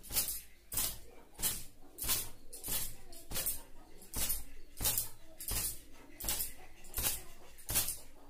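Long wet hair being beaten dry with a thin cotton gamcha towel: a sharp swishing slap of cloth on hair, repeated in a steady rhythm about every two-thirds of a second.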